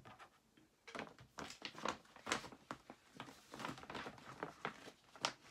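Objects being handled on a desk: a quick, irregular series of small knocks, taps and rustles, starting about a second in.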